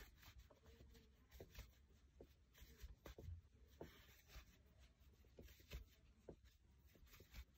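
Faint rustling and scattered small clicks of hands pulling loops of pre-looped chenille yarn through one another while hand-knitting; otherwise near silence.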